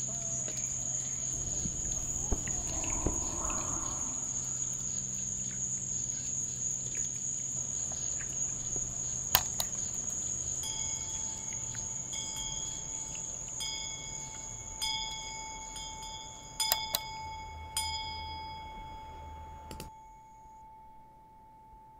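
Crickets trilling steadily in a high, unbroken tone. About halfway in, bright chime tones begin ringing over them, with a few sharp clicks. Both stop shortly before the end, leaving only a low chime tone.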